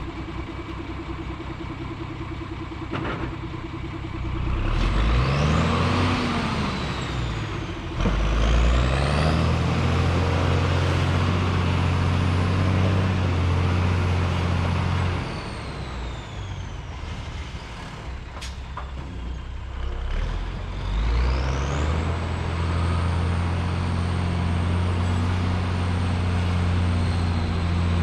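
Diesel engine of a 6x6 dump truck hauling dirt, revving up and easing off several times as it works through its gears. A high whine rises and falls with the engine speed, and there is a sharp click about eight seconds in.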